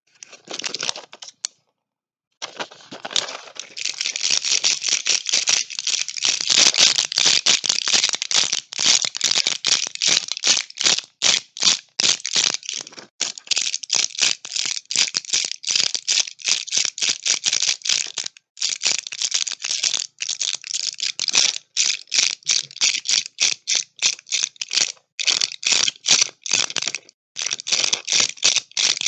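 Medicine tablets rattling as their packaging is shaken: a rapid, dense clatter of small hard clicks, broken by a short pause about two seconds in and brief gaps later.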